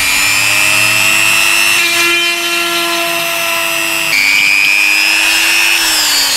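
Dremel rotary tool running with a steady high whine as it drills a hole through a cockle shell. Its pitch shifts a couple of times as the bit bears on the shell, then falls away near the end as the tool winds down.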